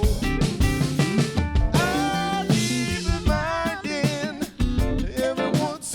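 A soul/funk song mix with drum kit, bass, guitar and pitched melodic lines playing between sung phrases, processed through a Behringer 369 compressor (a clone of the Neve 33609).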